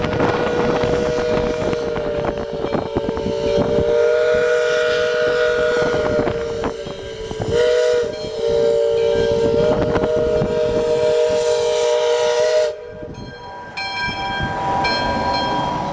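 Steam whistle of the 1855 4-4-0 locomotive William Mason blowing one long chord of a few close notes, dipping briefly about eight seconds in and cutting off suddenly about thirteen seconds in. A few short, high ringing tones follow near the end.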